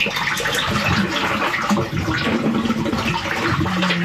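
Sewage water rushing and splashing in an open brick manhole chamber as a high-pressure drain-jetting hose works in the channel. The backed-up water is draining away, the sign that the blockage has cleared.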